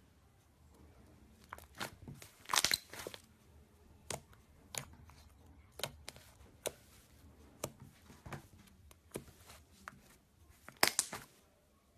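Slime being squished and mixed by hand, giving sharp sticky pops and crackles about once or twice a second, with louder clusters about two and a half seconds in and near the end.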